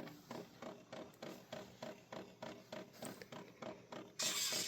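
Bare phonograph needle held by hand in the groove of a spinning 33 rpm record, with no tone arm or reproducer, giving a faint scratchy sound with regular ticks about four a second. Near the end it changes to a louder, steady scratchy hiss.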